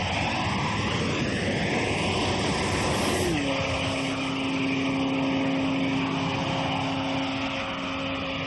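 A vehicle engine drone over wide noise, whose main note drops in pitch about three seconds in and then holds steady.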